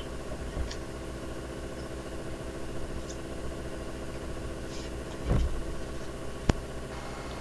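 Steady low mechanical room hum, with a soft thump about five seconds in and a single sharp click about a second later.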